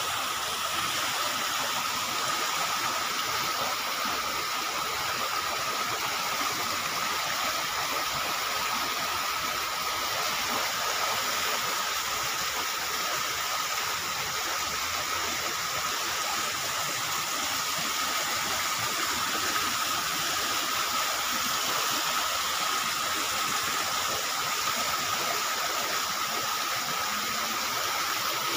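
Heavy rain pouring steadily, a dense even hiss that holds without a break.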